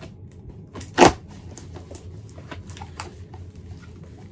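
Cardboard shipping box being opened by hand: one loud sharp tear about a second in, then scattered small crackles and rustles of cardboard and packing.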